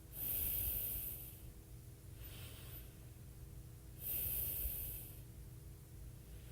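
A woman breathing close to a phone microphone: two strong, hissy breaths about four seconds apart, with a fainter one between them.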